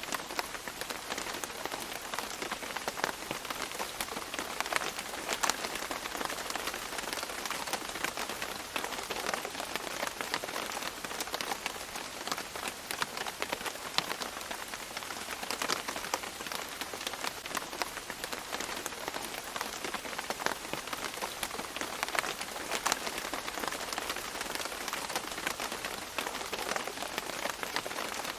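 Steady tropical rain pattering on leaves, with many individual drops striking close by through a dense hiss of rainfall.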